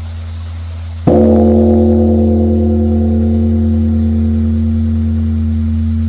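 Large Korean bronze Buddhist temple bell (beomjong) struck once about a second in, with a deep strike followed by a long ringing of several tones fading slowly. A low hum is already sounding beneath it before the strike.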